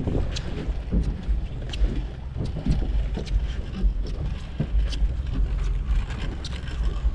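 A rope hauled hand over hand over a boat's gunwale, bringing up a lobster hoop net, with scattered short knocks and scrapes from the handling. Under it, a steady low rumble of wind on the microphone.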